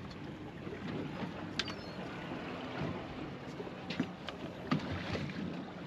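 Ambience aboard a small fishing boat on open water: a steady low hum with wind and water noise, broken by a few sharp clicks, the strongest about a second and a half in and again near four and five seconds.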